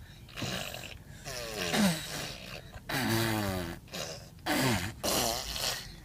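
Children making fart sounds with their mouths: a string of about five blown raspberries and buzzy voiced noises, several of them falling in pitch.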